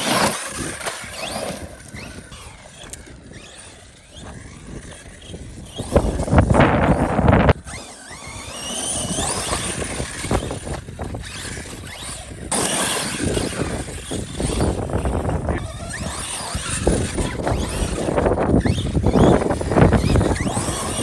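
Arrma Fire Team 6S RC car's brushless electric motor whining up and down in pitch as it is driven hard, with a loud noisy burst about six seconds in.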